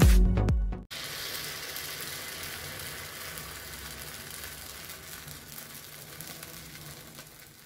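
Electronic music cuts off about a second in. Then batter and oil sizzle steadily in the hollows of a cast-iron kuzhi paniyaram pan as the paniyaram fry, the sizzle slowly fading.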